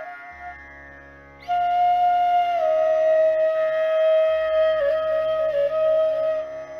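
Meditative flute music over a steady low drone. After a short lull the flute comes in about a second and a half in on a long held note, steps down to a lower one, and adds a small trill near the end.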